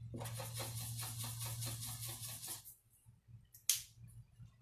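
Felt-tip marker scribbling back and forth on paper in quick strokes, a few a second, colouring in a circle; the scribbling stops about two and a half seconds in. Near the end comes a single sharp click, the marker's cap snapping on.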